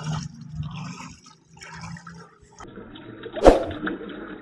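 Water splashing and churning as a plastic-bottle toy boat's paddle wheels beat the surface, with one sharp, loud splash a little past the middle.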